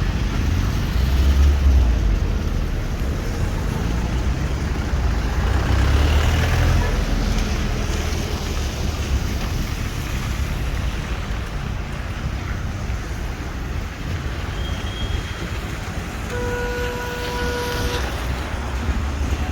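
Road traffic passing on a rain-wet street, with a low rumble of wind on the microphone. Near the end a single steady horn toot sounds for under two seconds.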